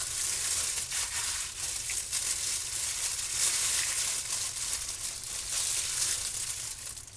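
Thin disposable plastic gloves crinkling and wet raw chicken squelching as hands pull the skin off chicken thighs in a bowl, a continuous irregular crackling rustle.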